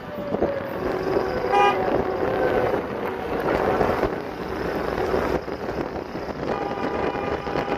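Car horns honking from a line of cars driving in convoy, the celebratory honking of a wedding procession: a short honk about one and a half seconds in and honking again near the end, over steady road and engine noise.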